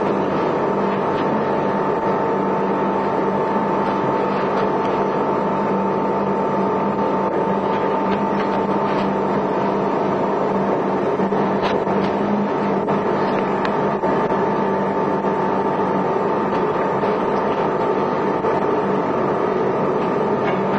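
A steady drone of noise with a constant low hum and a higher steady tone over it, unchanging throughout, with a few faint clicks.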